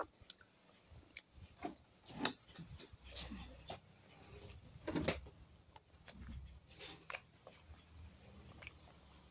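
Quiet eating sounds of someone chewing fried tripe by hand: scattered faint mouth smacks and clicks, with a couple of louder ones about two and five seconds in.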